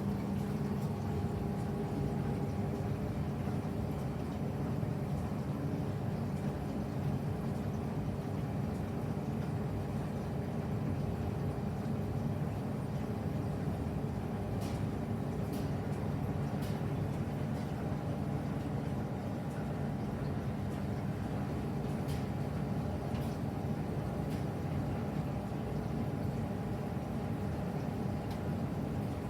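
Old SANYO front-loading drum washing machine running its wash (agitation) cycle, a steady motor hum with a few constant tones, broken by a few faint clicks.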